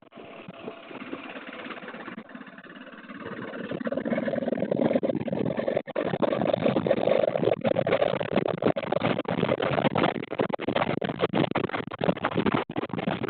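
Motorcycle engine running while riding along, with wind rushing over the camera microphone, growing louder about four seconds in.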